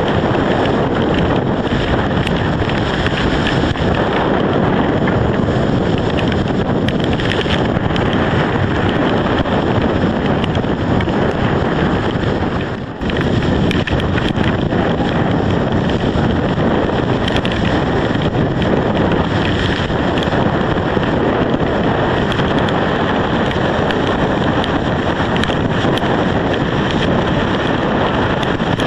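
Hurricane-force storm wind buffeting the microphone in a steady loud rush, over choppy, wind-whipped lake water. The wind eases for a moment about halfway through.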